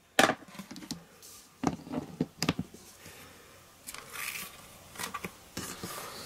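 Clicks and taps of clear stamps and a plastic stamp-positioning platform being handled, with a short rubbing sound about four seconds in.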